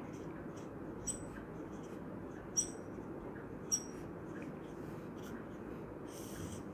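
Marker writing on a whiteboard: faint strokes with three short high squeaks, about a second in, at two and a half seconds and near four seconds, over a steady low room hum.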